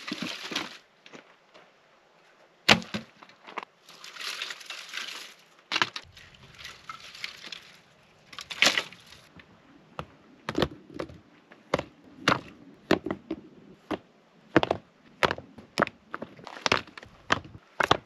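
Rustling of a plastic bag and items handled in a plastic storage bin, then a run of sharp knocks, one or two a second, as rocks and pieces of dead wood are set in place around a stone fire ring.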